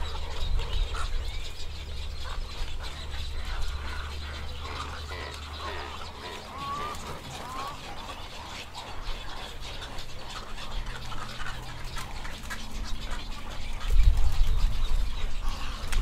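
Many birds calling together at a nesting colony of egrets, spoonbills and cormorants: a busy mix of short calls, some sliding up and down in pitch. A low rumble runs underneath and swells about two seconds before the end.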